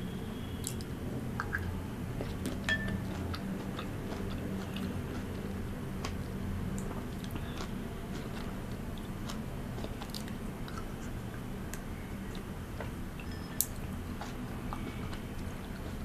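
Close-miked chewing and biting of cherries and blueberries, with many short wet clicks and small clinks of a metal spoon against a glass bowl over a steady low hum; one sharp click a little past the middle stands out.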